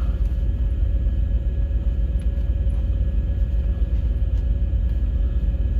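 Steady low rumble of an idling truck engine, with a faint steady hum above it.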